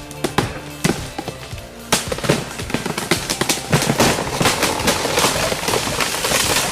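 Background music with a few sharp cracks, then from about two seconds in a dense, irregular run of loud snaps and cracks that grows thicker.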